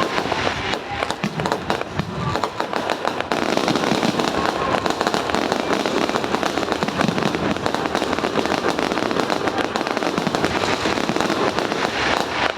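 Fireworks display going off in a dense, unbroken run of crackling and popping bursts.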